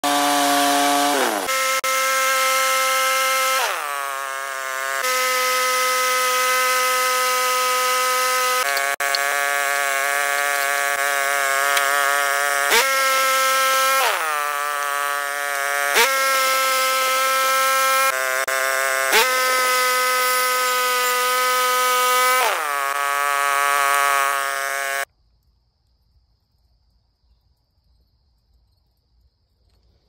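Woodland Mills HM126 bandsaw sawmill running, its engine and band blade cutting through a basswood burl with a loud steady whine. The pitch jumps and sags several times as the cut goes on, with a few sharp clicks. The sound stops abruptly after about 25 seconds.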